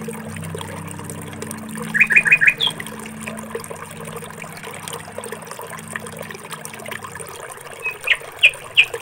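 A small bird chirping: a quick run of four short chirps about two seconds in, then three more near the end, over a low steady drone.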